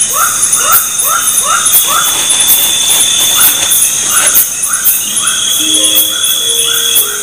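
Loud chorus of night insects, a steady high pulsing buzz, with a short call repeating two or three times a second over it. Background music comes in about five seconds in.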